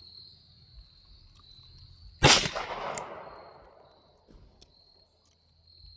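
A single shot from a Taurus TX22 Competition .22 LR pistol about two seconds in, sharp and then dying away over a second or so. Insects chirr steadily at a high pitch throughout.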